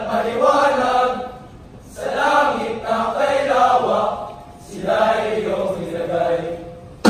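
A large group of voices reciting together in unison in Filipino, choral speaking delivered in a chanted cadence. The recitation comes in three long phrases with short pauses between them.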